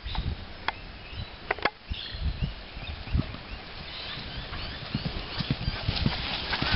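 A horse's dull hoofbeats on grass, irregular and growing louder near the end as it approaches.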